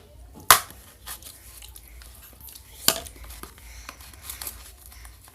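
Sticky homemade slime being stirred in a container, with wet tearing and crackling as it pulls away from the sides while it is still soft and not yet set. Two sharp clicks, about half a second and about three seconds in.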